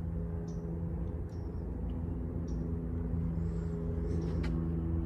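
A vehicle engine idling with a steady low hum, with short high bird chirps now and then.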